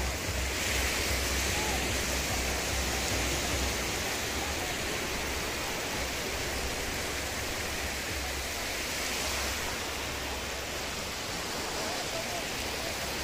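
Wind buffeting the microphone with a steady low rumble, over the continuous hiss of sea surf on a beach.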